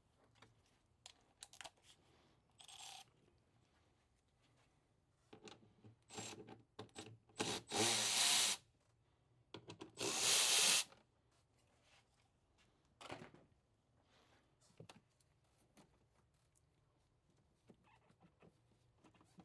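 Work on a car's engine-bay parts: scattered clicks and knocks, and two loud bursts of rushing noise about a second long each, near the middle.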